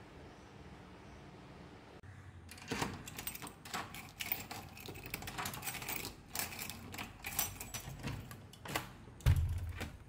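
Clothes being loaded into a washing machine: a dense run of clicks and rattles, with a dull thump near the end as the loudest sound.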